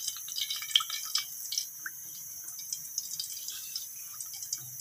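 Green cardamom pods and seeds frying in hot oil in a kadhai: a light sizzle with scattered small crackling pops, busiest in the first second or so and thinning out after.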